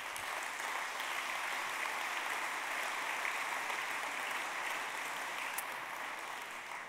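A large audience applauding steadily, the clapping starting to die down near the end.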